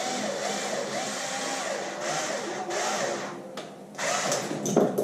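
Small cordless power driver running in bursts, its whine rising and falling in pitch as it drives screws, with a short pause about three and a half seconds in.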